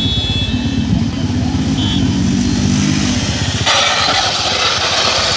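Motorcycle engine running, then about two-thirds of the way in a sudden loud scraping hiss as the motorcycle goes down and slides on its side along the asphalt in a staged skid.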